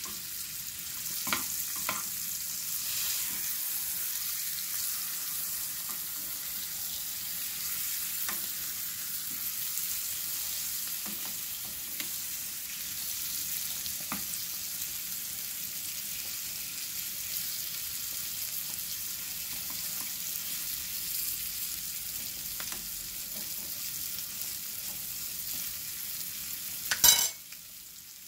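Rib eye steak and chopped onions frying in butter in a small pan: a steady sizzling hiss with a few light clicks. Near the end comes one loud, sharp knock, after which the sizzle is fainter.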